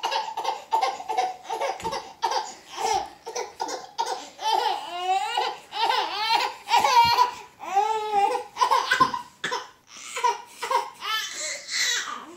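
A baby laughing in a long fit of belly laughs, short high-pitched bursts repeating several times a second, a few of them sliding up and down in pitch.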